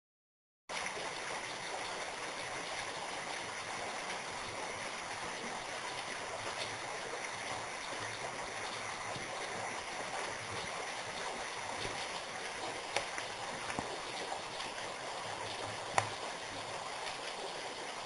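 Water dripping and trickling off a rock ledge: a steady patter of many drops, with a few louder single drips landing in the second half. It starts abruptly in under a second.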